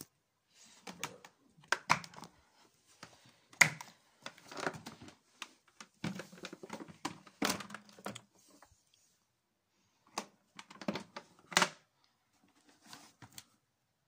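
Irregular plastic clicks, knocks and rattles from handling a Numatic Henry vacuum cleaner's parts, its motor top and tub, with the motor switched off.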